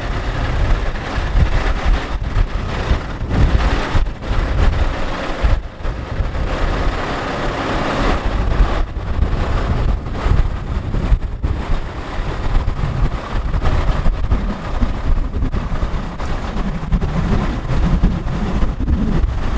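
Wind buffeting the microphone: an uneven, gusty rumble with brief lulls.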